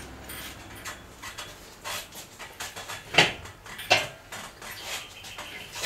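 Metal knocks and clanks as the engine and gearbox are worked out of the chassis, with two sharp loudest clanks about three and four seconds in.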